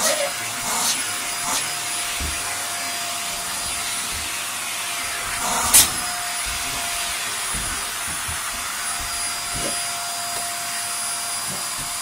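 Upright vacuum cleaner running steadily with a steady whine, its hose nozzle being drawn over a dog's coat. A few brief sharp sounds break through, the loudest about six seconds in.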